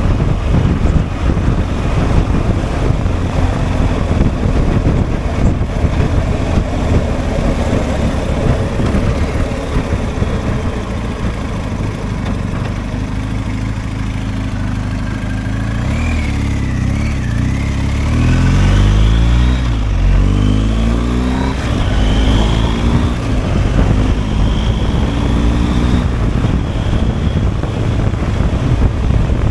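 BMW R1250 GSA motorcycle's boxer twin under way with heavy wind noise on the microphone. About halfway through the bike slows, then accelerates through several gears, the engine pitch rising and dropping back at each shift.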